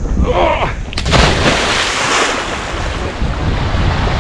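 Wind buffeting the microphone, a steady rushing noise, with a sharp knock about a second in followed by a louder gust.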